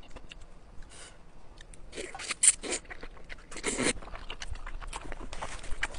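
A person slurping up long, wide Chinese glass noodles, with two loud slurps, one about two seconds in and another near four seconds, and wet chewing and lip-smacking clicks between them.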